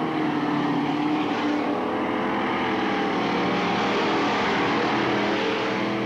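Several dirt-track stock car engines running hard at racing speed, their pitches bending up and down as the cars come through the turn, one passing close near the middle.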